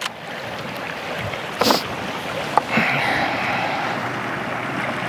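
Sea water washing and sloshing around rocks at the shoreline, a steady rushing noise, with a few sharp clicks and one short, louder burst of noise about a second and a half in.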